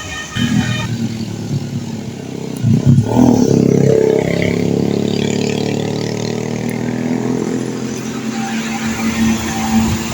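A bus's multi-tone telolet horn finishes its tune in the first second. Then a big bus engine passes close by, loudest about three seconds in, and runs on steadily as it slowly fades.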